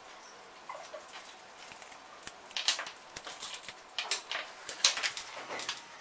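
Small metal parts of an air rifle's filling unit clicking and tapping together as they are handled and fitted by hand, in irregular sharp clicks that come thicker and louder in the second half.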